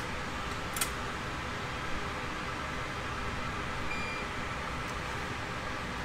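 Steady background hiss, with a light tap about a second in and a short faint beep about four seconds in.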